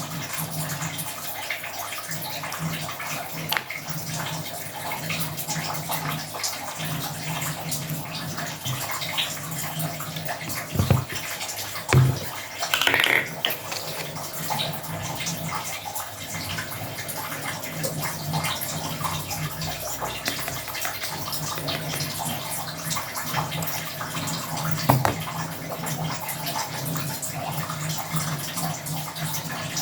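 Steady rush of running water, with a few short knocks or splashes about halfway through and again near the end.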